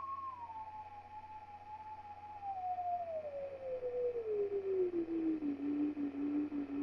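EarthQuaker Devices Disaster Transport SR delay pedal, its delay time knob being turned while the repeats sound: a sustained tone slides steadily down in pitch over about five seconds, the pitch dropping as the delay time lengthens, then settles on a low pitch with a pulsing, wavering level.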